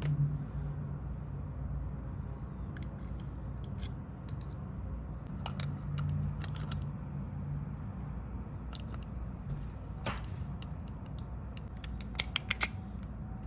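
Scattered light clicks and taps of small parts and hand tools being handled, over a steady low hum, with a quick run of clicks near the end.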